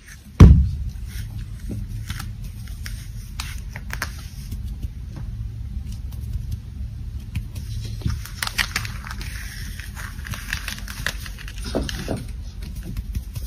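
A kitten's paws scuffling and tapping on a quilted mat as it hops and rolls about: many light taps and scuffs over a low steady rumble, with one loud thump about half a second in.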